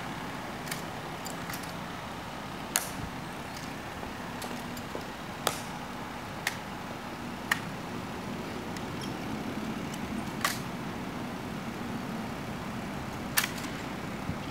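Sharp clicks and slaps of a ceremonial M14 rifle being handled during a guard's rifle inspection: about half a dozen single strokes, a second or more apart. Under them runs a steady vehicle hum.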